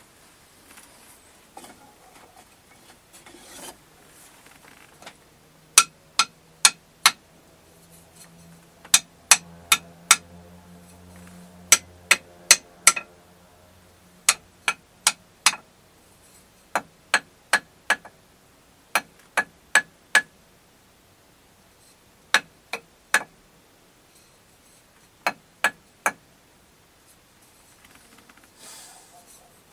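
A thin piece of wood tapped by hand: sharp knocks in groups of three or four, about two and a half a second, with short pauses between the groups.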